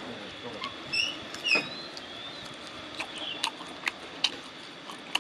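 A person chewing a mouthful of sauce-coated fried chicken, with irregular wet clicks and lip smacks.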